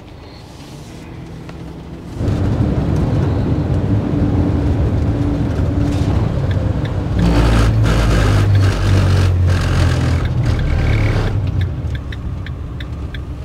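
Camper van driving on the highway, engine and road noise heard inside the cab, rising sharply about two seconds in and loudest midway, then easing as the van slows. A steady ticking, about two a second, sets in near the end, like a turn signal before pulling over.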